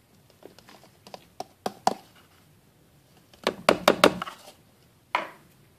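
A small cup knocked against the rim of a clear plastic storage bin to shake black soldier fly larvae and their bedding out: a few sharp taps, then a quick cluster of louder knocks a little past halfway.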